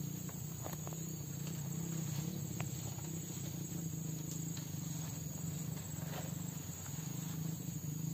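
Insects, crickets or similar, trilling steadily and high, over a low wavering hum, with a few faint clicks.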